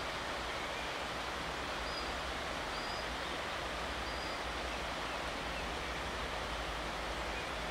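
Steady rushing outdoor ambience, an even noise like moving water or wind, with a few faint high chirps about two to four seconds in.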